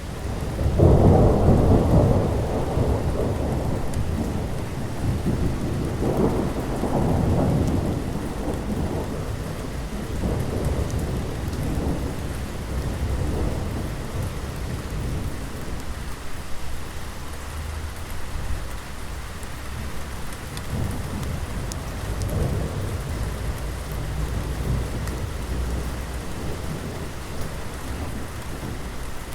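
Thunderstorm: steady rain falling, with a loud roll of thunder about a second in that fades over several seconds and a second, weaker rumble a few seconds later.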